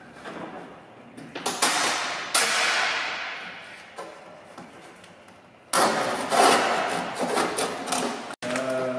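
A few hard knocks, each ringing briefly, then a stretch of about three seconds of loud, rough, rapid striking or scraping that stops abruptly.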